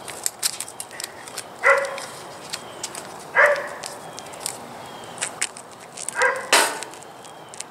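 A dog barks three times, short single barks spread a second or more apart, over light clicking and crackling of painter's tape being pressed down and handled, with a brief rip near the end.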